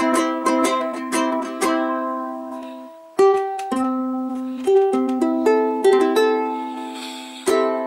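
Black Kmise ukulele played by hand: a quick run of picked notes for the first couple of seconds, then a short pause and slower single notes and chords left to ring out.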